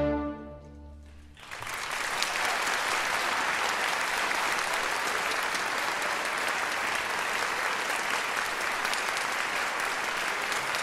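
An orchestra's closing chord fades out, and about a second and a half in the audience breaks into steady applause.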